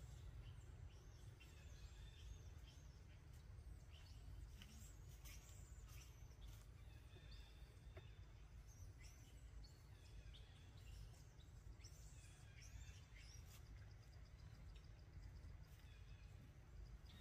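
Near silence: a steady low rumble with scattered faint high chirps and a few soft clicks.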